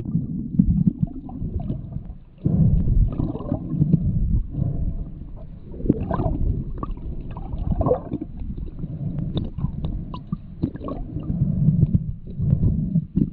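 Sound recorded underwater while a freediver swims down over weed: a continuous muffled low rumble of moving water, with irregular bursts of bubbles every second or two and scattered small clicks.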